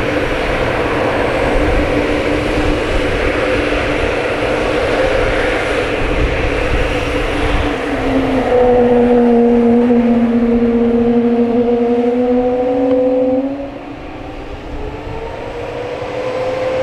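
Airbus A321neo's Pratt & Whitney PW1100G geared turbofans at takeoff power, a steady jet roar with an engine drone. The sound is loudest from about eight seconds in, when the drone drops in pitch as the airliner passes, and it fades about five seconds later.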